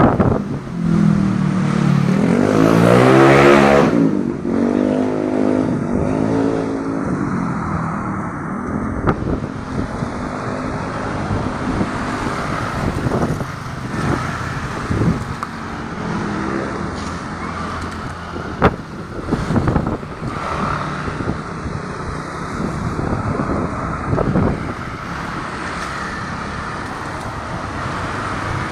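Strong wind blowing and buffeting the microphone, with a motor vehicle engine passing in the first few seconds, its pitch rising and falling.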